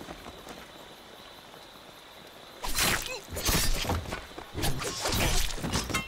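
A quiet stretch, then, about two and a half seconds in, a run of loud crashing and clattering bursts that goes on to the end.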